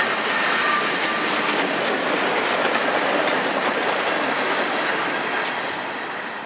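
Freight cars rolling past on the rails: steady wheel-and-rail noise, with faint thin wheel squeal near the start. It grows quieter over the last couple of seconds as the last cars, a tank car at the rear, go by.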